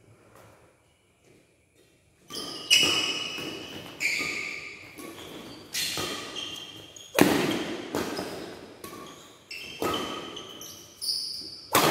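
Badminton rackets striking a shuttlecock in a quick doubles rally, sharp cracks about once a second that echo through a large hall, mixed with short high squeaks of court shoes. The rally starts a couple of seconds in, after a quiet pause.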